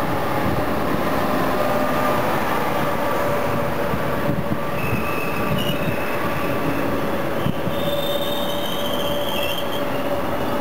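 CFL class 3000 electric locomotive and its double-deck coaches running past: a steady loud rumble of wheels on rail with a constant hum, joined about halfway through by thin high-pitched squealing from the wheels.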